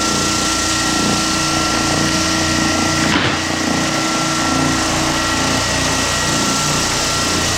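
Hyper Orbit floor sander with 100-grit black silicone carbide paper running steadily across a pine floor, a machine hum with a fixed high whine, with a brief bump about three seconds in.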